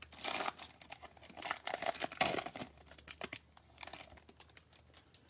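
A Topps Chrome trading-card pack's foil wrapper being torn open and crinkled by hand. It is a run of irregular crackling rustles that thins out and dies away near the end as the cards come out.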